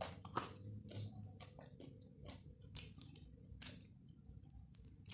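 A person chewing soft boiled chicken close to the microphone, with irregular wet mouth clicks and smacks a few times a second.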